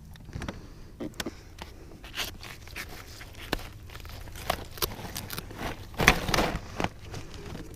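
Irregular clicks, knocks and scrapes of gear being handled aboard a fishing kayak, with a louder stretch of scraping and rustling about six seconds in.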